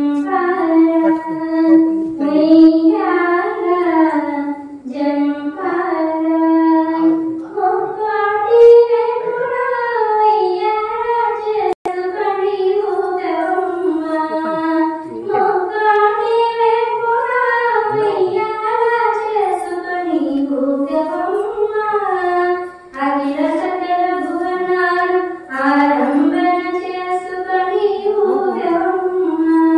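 A single high voice singing a devotional song to the goddess, the melody gliding through long held notes with short breaks between phrases.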